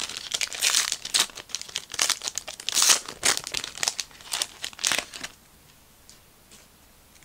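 Trading card pack wrapper crinkling and tearing as it is pulled open by hand, a dense crackle for about five seconds. It then goes quiet apart from a few faint clicks as the cards are handled.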